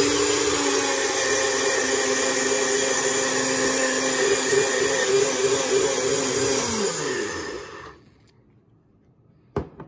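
Knockoff Ninja-style personal blender running at full speed, pureeing chopped onion, celery, jalapeños and bell peppers into a smooth green slop. About seven seconds in the motor cuts out and winds down, its pitch falling. One short click near the end.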